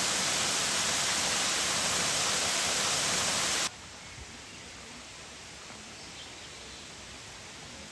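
Loud, steady rush of river water over rapids, which cuts off suddenly a little over three and a half seconds in, leaving a much quieter forest background with a few faint bird chirps.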